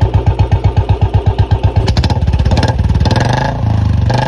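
Royal Enfield Bullet's single-cylinder four-stroke engine idling with an even thump, about eight beats a second. About halfway through it is revved, and the beats blur into a faster, steadier running.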